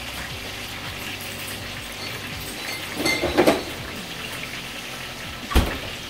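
Chicken wings deep-frying in a pot of hot oil: a steady sizzle. A short, louder noise comes about three seconds in, and a sharp knock near the end.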